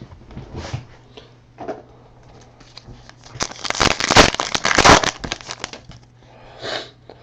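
Trading card pack wrapper being torn open and crinkled, a dense crackling burst of about two seconds near the middle.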